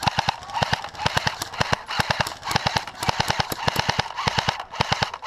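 Airsoft electric rifle (AEG) firing on full auto in short rapid bursts, about one burst a second, each a quick string of sharp clicking shots.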